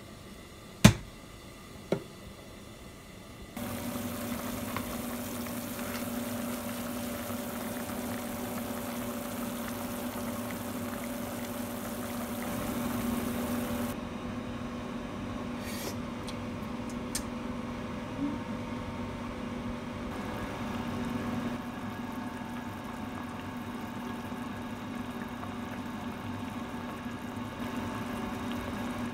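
Two sharp taps of a sea salt container over a pot, then a pot of spicy bean-sprout soup cooking on the stove with liquid sounds over a steady low hum.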